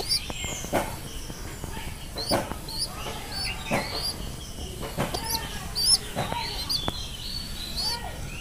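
Birds calling: many short, high chirps, with about half a dozen lower calls in between that drop in pitch.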